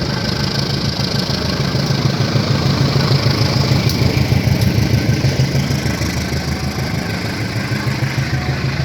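Diesel locomotive engine running steadily with a low hum, swelling a little midway.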